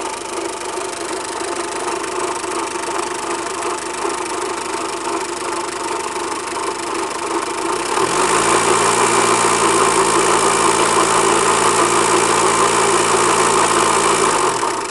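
Renault Kangoo 1.9-litre D55 diesel engine idling with its accessory belt removed, then revved up about eight seconds in, held for several seconds and let fall back near the end. It carries an odd scraping or rubbing noise that changes with engine speed, which the owner is trying to trace.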